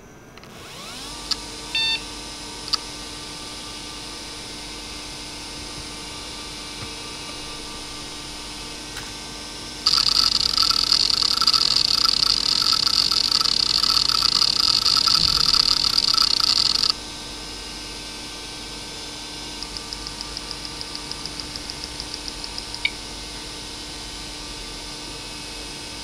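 Areal Technology A260 2.5-inch hard drive, with two glass platters turning at about 3000 rpm, spinning up with a rising whine and giving a few head clicks, then running with a quiet steady spindle whine. About ten seconds in, a much louder rushing buzz of rapid random-access head seeking lasts about seven seconds, then the quiet spin returns with a run of light ticks, about seven a second, and one last click near the end.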